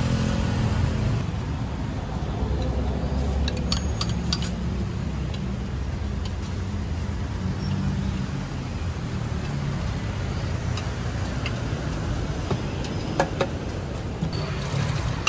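Steady low rumble of road traffic passing, with a few light clicks.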